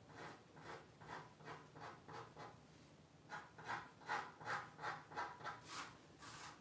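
Soft pen strokes scratching on drawing paper, about three a second, growing louder and quicker in the second half. Near the end come two sharper sweeps as the sheet is slid across the desk.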